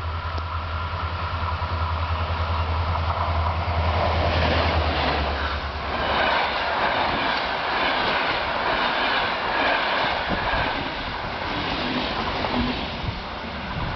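Diesel locomotive hauling a passenger train past at speed: a steady low engine hum that fades as the locomotive goes by about five seconds in. Then the passenger carriages roll past with a rumble and the rhythmic clickety-clack of their wheels over the rail joints.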